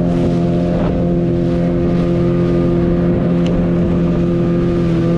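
Speedboat motor running steadily at speed, holding one even pitch, over the rush of water spraying off the hull.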